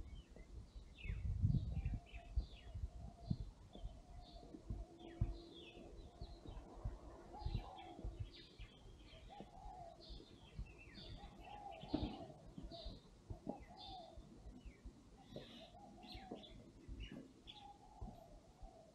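Small birds chirping, many short high chirps throughout, with low irregular thuds of footsteps underneath.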